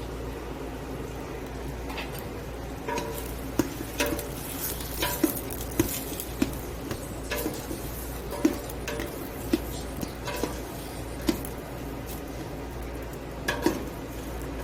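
A spoon stirring sausage pieces into onions, celery and bell pepper cooking in butter in a pot, knocking and clinking against the pot at irregular moments from about two seconds in, over a steady sizzle.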